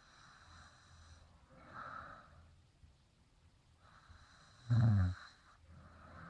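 A woman snoring in her sleep: soft, noisy breaths, then one loud, low snore about four and a half seconds in.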